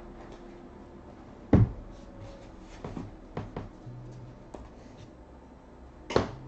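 Hands handling trading cards and paper packaging on a tabletop: a sharp tap or knock about a second and a half in, a few lighter clicks and rustles, and another knock near the end.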